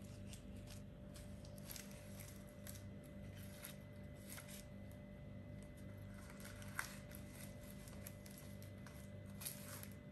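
Faint scratching, tapping and rustling of four-week-old kittens scrabbling about as they play, with a sharper click about seven seconds in and another near the end, over a steady low hum.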